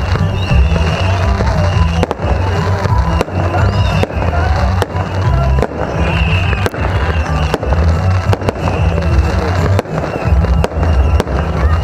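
Aerial fireworks shells bursting, about a dozen sharp bangs at irregular intervals, over loud music with a heavy bass.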